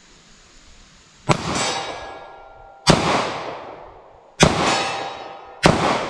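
Four shots from a 9mm Taurus 905 snub-nose revolver, fired about one and a half seconds apart, each followed by a long ringing tail.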